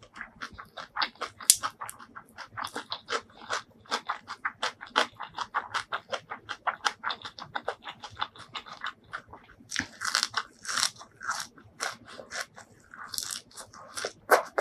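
Close-miked chewing of crisp raw green vegetable stems: a quick, steady run of crunches, several a second, with louder crackling stretches about two-thirds through and near the end.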